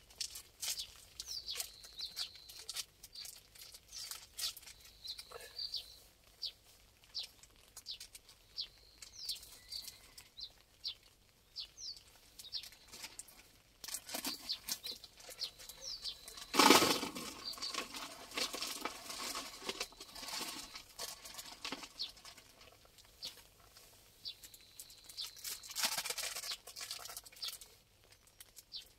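Small birds chirping, with crinkling and rustling of bait packets being handled and a louder rustling rush a little past halfway.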